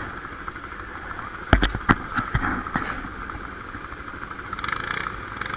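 ATV engine idling steadily, with a few sharp knocks about a second and a half in.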